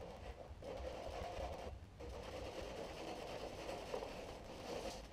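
Hand saw cutting through a wooden gunwale strip in long, steady strokes, with two brief pauses, one just after the start and one around two seconds in.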